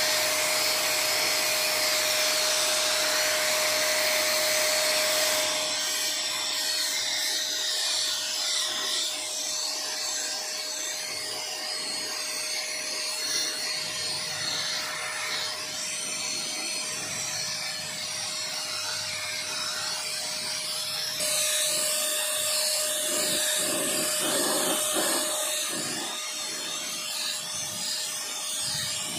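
Handheld electric paint sprayer running while spraying paint: a steady motor whine under a hiss of spray. It is louder for the first five seconds or so, and again for a few seconds in the second half.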